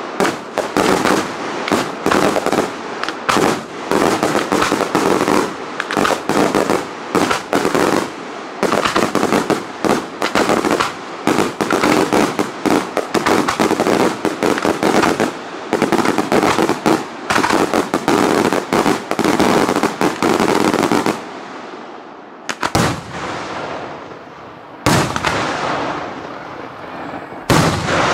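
Daytime aerial fireworks: a dense barrage of rapid bangs and crackling bursts for about twenty seconds, then three separate loud bangs a couple of seconds apart near the end.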